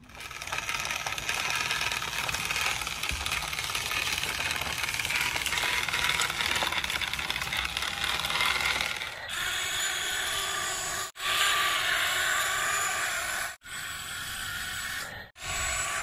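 Plastic toy trucks rattling and scraping over gravelly dirt, a steady clatter that changes about nine seconds in and then breaks off abruptly three times.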